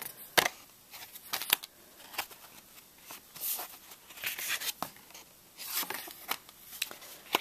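A stack of 4x6 cardstock journaling cards being handled and flipped through: soft paper rustles, with two sharp clicks in the first two seconds.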